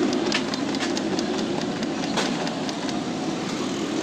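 A steady mechanical hum like a running engine or passing traffic. Over it come scattered light clicks and knocks as plastic dashboard parts of a wrecked truck cab are handled.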